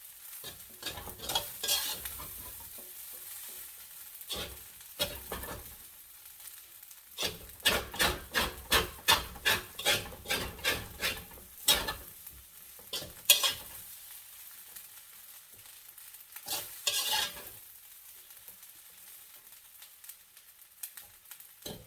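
Spatula stirring and scraping fried rice in a hot pan, with the rice sizzling. The strokes come now and then, with a quick run of about two strokes a second in the middle.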